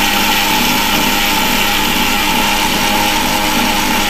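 Electric mixer grinder (mixie) with a steel jar running steadily, grinding roasted moong dal into a fine powder, with a constant motor whine.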